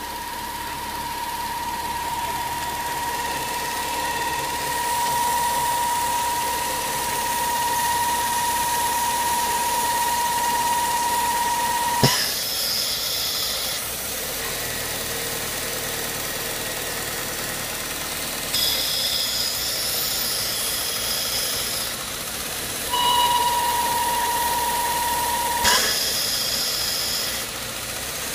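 BMW E36 engine running with a steady high-pitched squeal and a hiss, which the owner believes come from a bad hose. The squeal cuts off with a click about halfway through and comes back briefly near the end, with spells of sharper, higher hiss in between.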